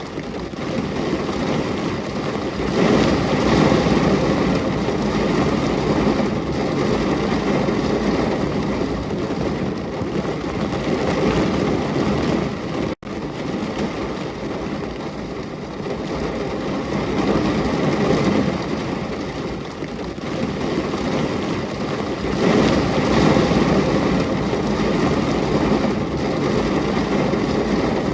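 Steady rain: a dense, even rushing hiss that swells and eases, with a momentary dropout about halfway through.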